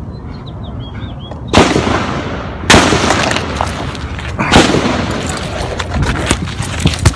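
Gunshots with a long echo after each: one about one and a half seconds in, another about a second later, a third near the middle, then a quicker string of shots near the end.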